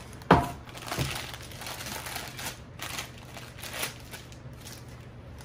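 Baking paper crinkling and rustling as hands pull and smooth it under a slab of Rice Krispie treats on a table. There is a single sharp thump about a third of a second in, the loudest sound, and a softer knock a moment later.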